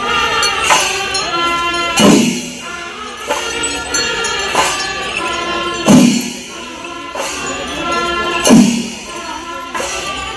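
Kerala temple percussion ensemble (chenda melam): massed chenda drums playing continuously over clashing hand cymbals, with heavy accented drum strokes every two to four seconds.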